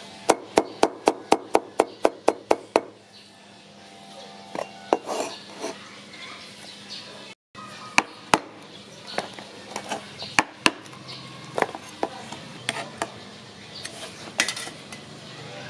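Cleaver chopping garlic on a wooden chopping board, quick even strokes about four a second for the first three seconds. Later, sharp metallic taps and scrapes as the cleaver's corner is punched into and levered around the lid of a tin can to cut it open.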